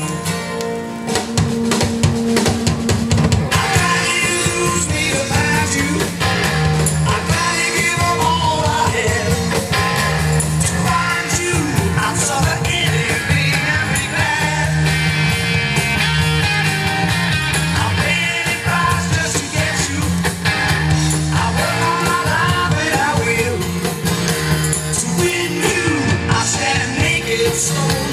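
Rock song with singing, guitar and drums, played from a vinyl record through a Sansui AU-717 integrated amplifier's phono input and loudspeakers: a phono-stage test of the amplifier.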